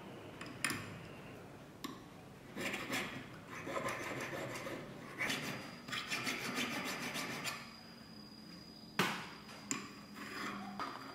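Needle file scraping along the edge of a small silver ring on a wooden bench pin in a run of quick strokes, followed by a few light knocks, the sharpest about nine seconds in.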